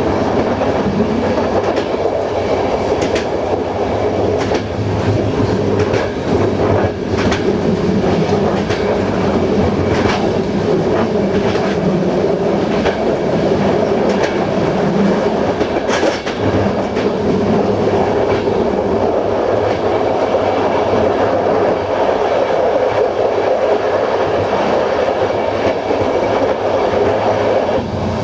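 Passenger train running along the line, heard from aboard: a steady rumble of wheels on rail, with sharp clicks as the wheels pass over rail joints at irregular intervals.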